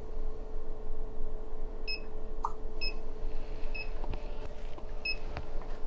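Short high-pitched beeps, about one a second, from an MS5910 RCD loop tester's alarm. The beeping starts about two seconds in and means the 10 mA type AC RCD did not trip within 300 ms during the test.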